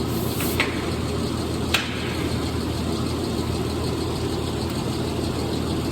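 Gas torch burning steadily as a steel clutch part is preheated to drive moisture out before welding, with two sharp clicks in the first two seconds.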